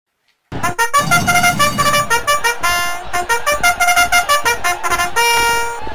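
A quick tune of short, buzzy horn notes, ending on one longer, lower note.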